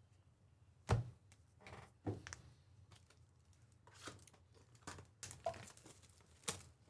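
Scattered light taps and faint rustles of trading cards being handled and set down on a table, with one sharper tap about a second in.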